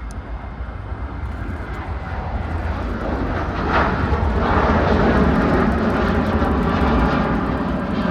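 Jet airliner passing close by, its engine noise swelling over the first few seconds and then staying loud.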